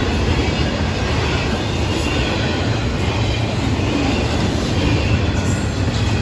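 Intermodal freight cars of a Florida East Coast Railway train rolling past on the rails: a steady noise of wheels and cars.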